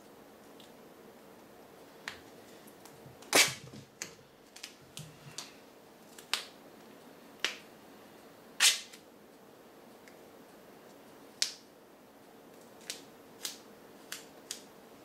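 Duct tape being pulled, peeled and pressed into strips by hand: a string of sharp clicks and short crackling snaps at irregular intervals, the loudest about three and a half and eight and a half seconds in.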